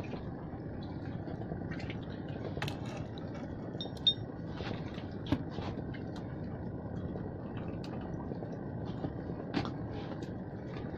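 Steady noise of a boat on the water, with a few scattered light clinks and knocks, the sharpest about four and five seconds in.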